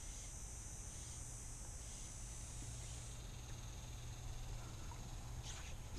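Faint, steady high-pitched insect buzzing along the river bank, which stops about halfway through, over a low steady hum; a few brief sweeping sounds come near the end.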